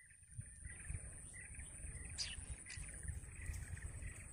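Birds chirping in a continuous chatter over a thin, steady high-pitched whine and a low rumble.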